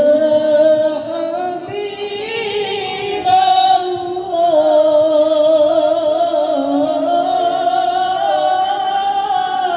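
Women singing sholawat, an Islamic devotional song, through microphones. The notes are long, held and ornamented, with a wavering vibrato, and two voice parts move along together.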